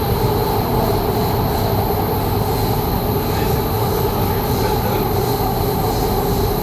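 Doha Metro train running, heard from inside the carriage: a steady rumble with a constant high whine held at an even pitch.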